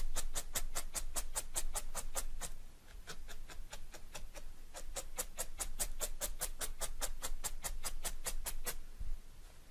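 A felting needle stabbing rapidly through wool into a foam mat: a fast, even run of crisp ticks, about five or six a second. It eases off for a moment about two and a half seconds in, then picks up again and stops shortly before the end.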